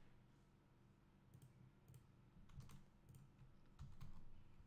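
About half a dozen faint clicks from a computer keyboard and mouse, spaced irregularly over near silence.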